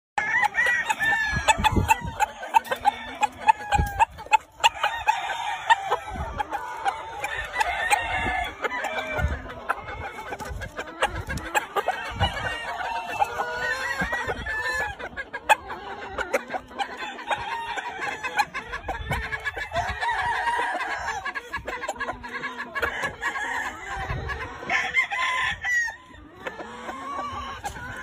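A flock of gamefowl chickens calling: many overlapping clucks from the hens, with roosters crowing among them. A few low thumps come now and then.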